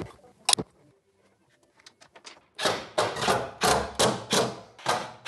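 Cordless DeWalt power driver running a screw down into the floor in a quick series of short bursts, about three a second, with a couple of sharp clicks before it.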